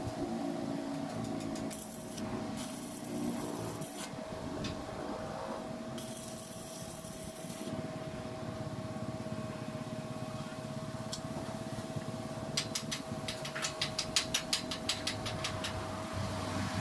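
Arc welding on a steel gate: the arc hisses in short bursts over a steady hum, then crackles in a rapid run of sharp clicks near the end.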